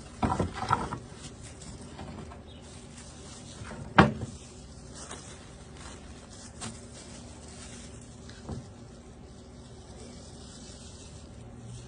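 Kitchen handling sounds: a quick clatter of knocks in the first second, a single sharp knock about four seconds in, the loudest, and a couple of fainter knocks later.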